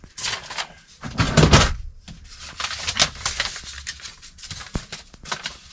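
Sheets of paper rustling and crackling as they are leafed through and shuffled by hand, in irregular rustles with the loudest about a second and a half in.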